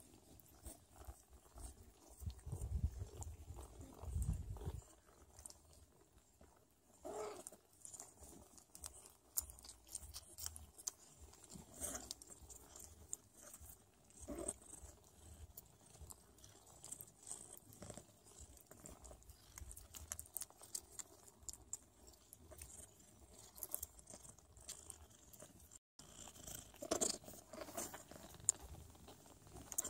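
Newborn Sphynx kittens suckling at their mother, a steady run of small wet smacks and clicks, with a few brief soft kitten squeaks. A low rumble comes in between about two and five seconds in.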